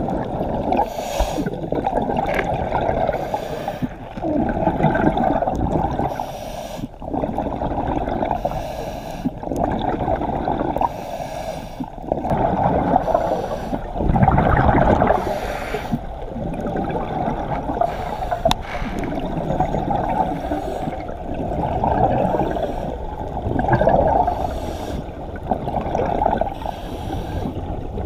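Scuba diver breathing through a regulator underwater: a repeating cycle of breaths and gurgling exhaled bubbles, swelling and fading every couple of seconds.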